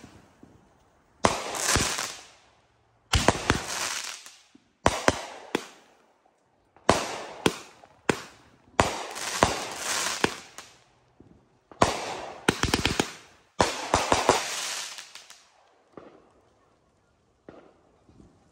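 Consumer aerial fireworks going off in a rapid series, about a dozen sharp bangs each trailed by a second or so of rapid crackle. The volley stops a few seconds before the end.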